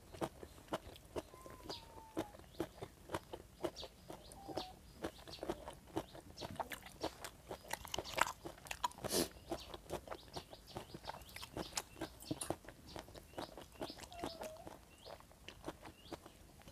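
Close-miked chewing and biting of boiled pig intestines: a dense, irregular run of wet clicks and crunches, a few louder ones near the middle.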